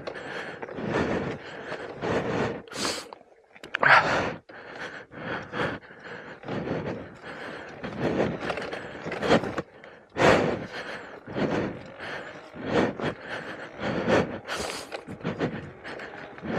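A person breathing hard, with heavy, uneven panting breaths about once a second.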